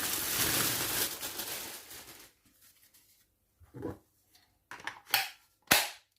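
Plastic packaging crinkling and rustling for about two seconds as a cordless impact driver is unwrapped, then three sharp knocks of the tool being handled, the last the loudest.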